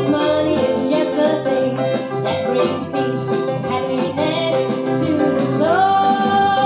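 Country gospel song with a bluegrass sound: plucked banjo and guitar with singing. Near the end a note slides up and is held.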